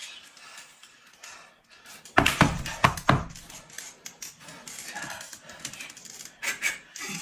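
A quick run of loud, sharp slaps about two seconds in: a plastic sandal striking a bare thigh. A few lighter smacks follow near the end.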